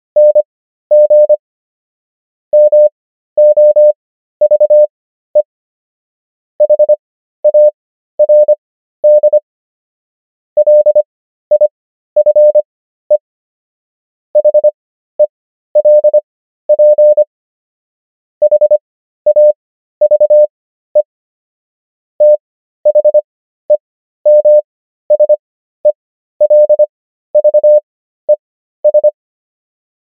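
Morse code practice tone: a single steady mid-pitched beep keyed in short and long elements (dits and dahs), sent at 25 words per minute character speed with Farnsworth spacing to 13 words per minute. The letters come in quick clusters separated by longer silent gaps between letters and words, spelling out common English words.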